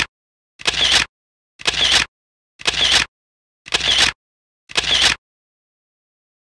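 Camera shutter sound effect, repeated about once a second, five times, with dead silence between the clicks. The clicks stop about five seconds in.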